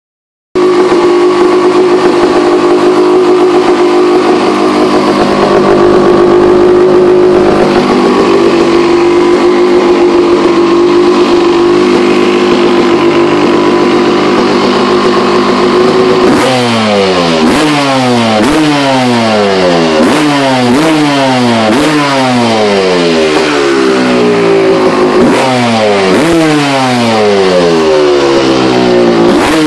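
1987 Honda CR250R's single-cylinder two-stroke engine running through a freshly repacked and polished Pro Circuit silencer. It runs steadily for about sixteen seconds, then is revved in a quick series of throttle blips, each rising sharply and falling back.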